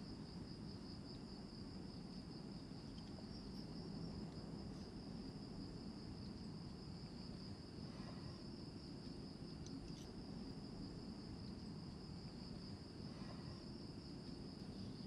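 Crickets chirring at night: one continuous high, finely pulsing trill that holds steady throughout, faint over a low background hiss.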